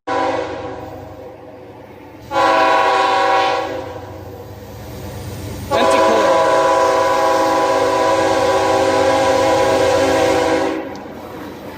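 Nathan K5HL train horn (third generation) on a CSX freight locomotive blowing: a sounding chord fades away at the start, a blast of about a second and a half comes about two seconds in, then a long steady blast of about five seconds starts near six seconds in and cuts off near the end.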